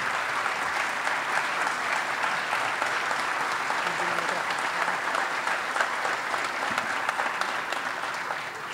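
Audience applauding steadily, starting to thin out near the end.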